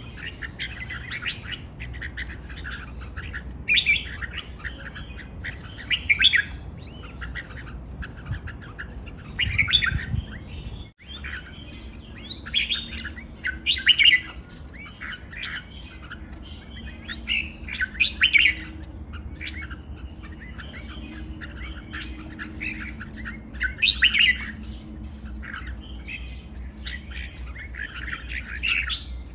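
Caged red-whiskered bulbul singing: short, bright chirpy phrases one after another with brief pauses between them.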